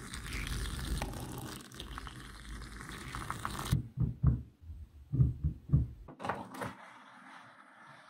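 Tiny magnetic balls clicking and scraping as a card is dragged through a packed slab of them. The noise cuts off suddenly, then comes a series of dull thumps as hands pat and press on the block of balls.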